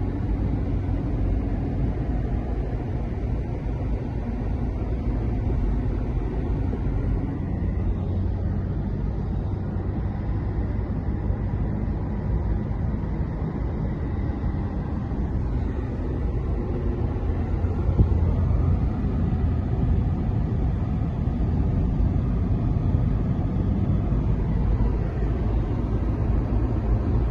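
Steady low rumble of a car driving along a highway, heard from inside the car: engine and tyre noise at cruising speed.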